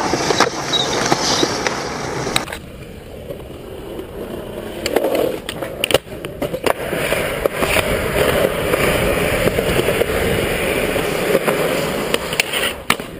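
Skateboard wheels rolling on concrete, broken by sharp clacks and knocks as the board pops, lands and grinds along concrete ledges. The sound changes abruptly about two and a half seconds in, where one clip cuts to another.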